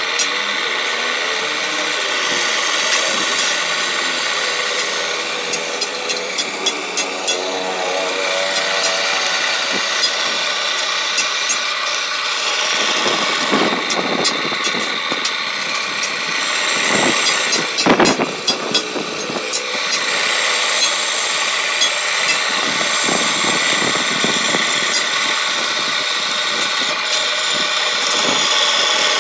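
Old pedestal drill press running, its twist bit cutting into a steel flat bar. A steady cutting noise with frequent sharp clicks throughout.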